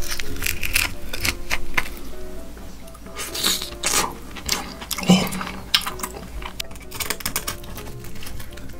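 Background music over close-up eating sounds: a wooden spoon and chopsticks clicking and scraping on split roasted beef marrow bones, and a mouthful of marrow taken off the spoon, loudest about five seconds in.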